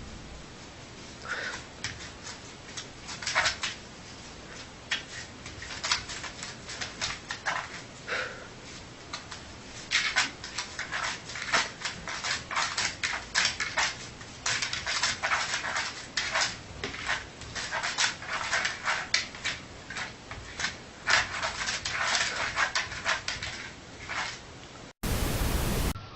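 A sleeping dog whimpering and giving many short, muffled yips in its sleep, sparse at first and coming in quick succession from about ten seconds in. A second of loud hiss cuts in near the end.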